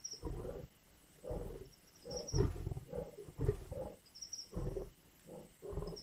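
Lion growling and snarling over a carcass: a run of short, low, rough growls, about one every second, with short gaps between them.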